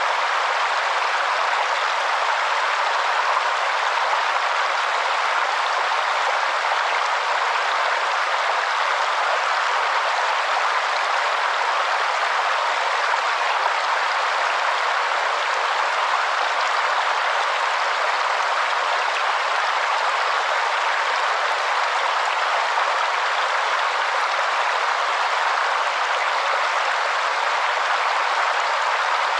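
Waterfall: water falling steadily, an even rushing hiss that sits in the middle and upper pitches with almost no low rumble.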